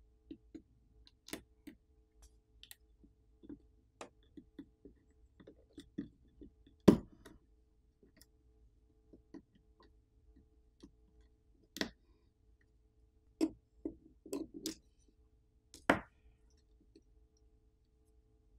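Irregular light clicks and taps of a small repair tool against a smartphone's internal parts, a few of them sharper, as the 5G mmWave antenna's flex cable is unclipped and the antenna module worked free.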